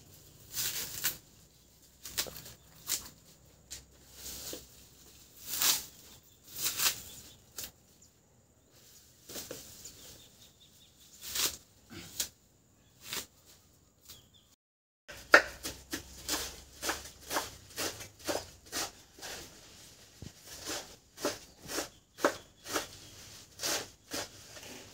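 Cassava leaves being stripped from their stems by hand: scattered crisp snaps and rustles. After a brief gap about halfway, a knife chops the leaves on a wooden board, steady knocks at about two a second.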